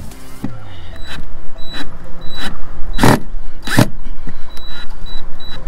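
Cordless drill driving a #8 screw beside a broken-off screw in an RV ladder mount: a series of sharp knocks and clicks, about one every half second to second, with a brief motor whir falling in pitch just after the start.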